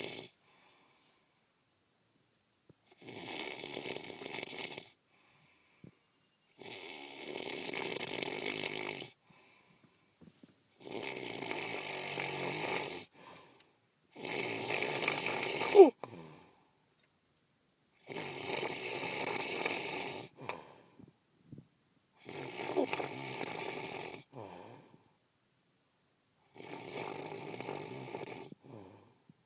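A person snoring heavily, one long snore every three to four seconds, with a sharp, louder catch at the end of one snore about halfway through.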